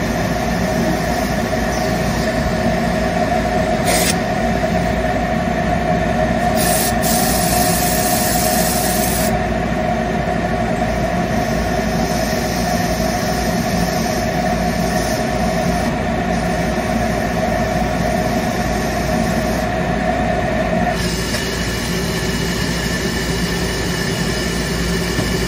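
Stain-removal spotting machine running with a steady motor hum and a held tone that cuts off about three-quarters of the way through, leaving a lower hum.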